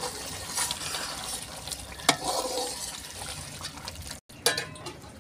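A spoon stirring chicken in a pot of simmering masala gravy to mix in added salt, with scraping and a few sharp knocks against the pot, the loudest about two seconds in. The sound drops out for a moment near the end.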